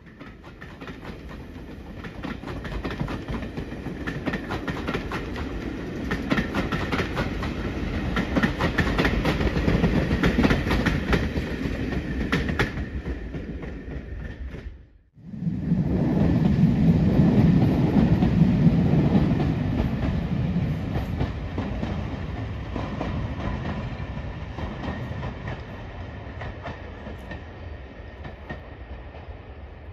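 Passing train of coaches clattering over the rail joints, with fast rhythmic clicks, as the steam-hauled train draws away. After a sudden cut, a diesel multiple unit's underfloor engines rumble loudly as it runs past, then fade as it moves off.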